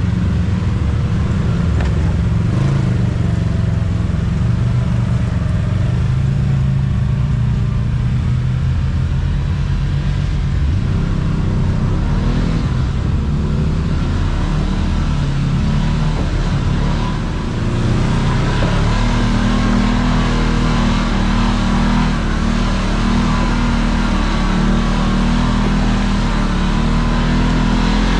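Engine of a Kawasaki Teryx KRX 1000 side-by-side, a parallel twin, running under load on a trail. It dips briefly about two-thirds of the way through, then settles into a steadier, slightly higher note.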